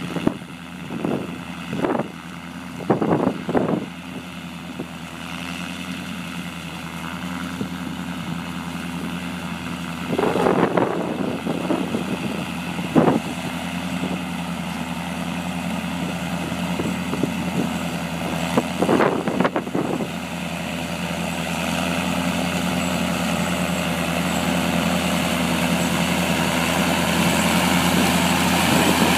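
Oliver tractor engine running steadily while working a mounted corn picker through dry corn, growing louder as it comes closer. Several short knocks and rattles break in at intervals, a cluster in the first few seconds and more near the middle.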